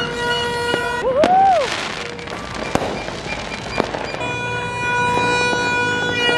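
New Year's aerial fireworks going off: several sharp bangs and a crackling burst, with a whistle that rises and falls about a second in. Steady horn toots sound underneath, a different, brighter horn taking over after about four seconds.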